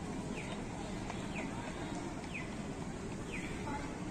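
A short high chirp that falls in pitch, repeating steadily about once a second like a signal, over a low murmur of crowd and outdoor noise.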